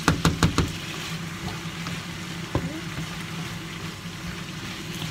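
Zucchini and other vegetables sizzling in a nonstick frying pan while a spatula stirs them, with several quick knocks of the spatula against the pan in the first half-second and one more about two and a half seconds in. A steady low hum runs underneath.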